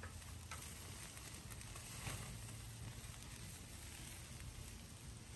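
Steaks sizzling faintly and steadily on a wire grate over hot campfire coals, with a few light clicks as metal tongs turn them over.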